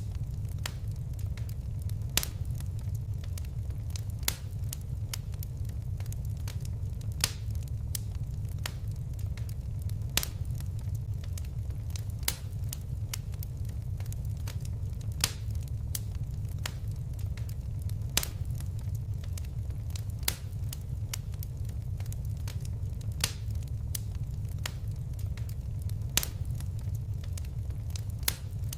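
Fire crackling: sharp snaps and pops at irregular intervals over a steady low rumble.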